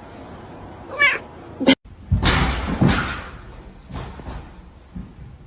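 A house cat meowing briefly about a second in, then, after a sudden break, a louder noisy sound that fades away over about two seconds.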